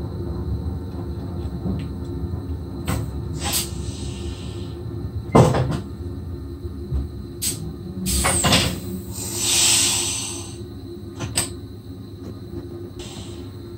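Cab interior of an SGM Sprinter electric multiple unit rolling slowly past a platform: a steady low rumble from running gear and traction equipment, with scattered clicks and knocks, a loud clunk about five seconds in, and bursts of hiss around four and nine seconds in.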